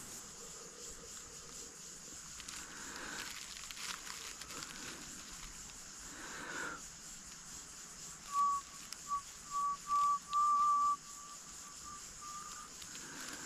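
A run of short whistled notes at nearly one pitch, creeping slightly higher, starting about eight seconds in and fading near the end. Under it runs a steady high insect drone.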